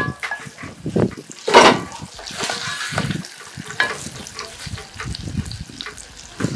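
Food sizzling in a pot while a spoon stirs and scrapes it, with irregular knocks against the pot.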